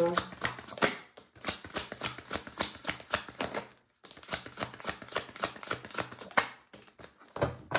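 Tarot deck being shuffled by hand: a quick run of card flicks and slaps. It breaks briefly about a second in and again at about four seconds, and peters out near the end.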